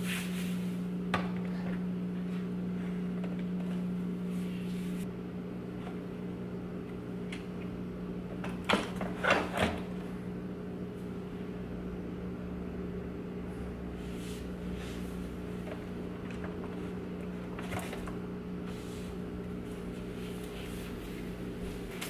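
Hard plastic knocks and clicks as a Roomba s9+ robot vacuum and its Clean Base dock are set down and plugged in, the loudest a short cluster of clunks about nine seconds in. A steady low hum runs underneath.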